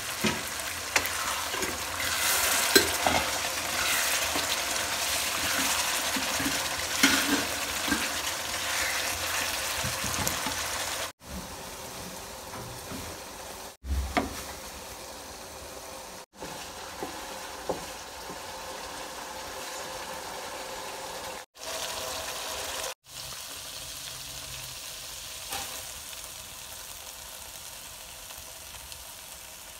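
Chicken masala gravy sizzling and bubbling in a wok, with occasional spoon clicks. After about 11 seconds it drops to a quieter, steady sizzle, broken by a few brief gaps.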